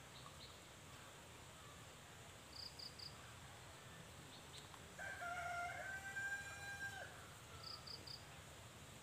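A rooster crowing once, a single drawn-out crow starting about five seconds in and lasting about two seconds. Short high chirps in quick groups of three sound before and after it.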